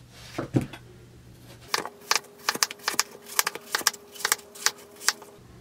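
Chef's knife slicing a watermelon quarter into wedges, a quick run of about ten crisp cuts, each one clicking as the blade goes through the rind and meets the plastic cutting board, about three a second.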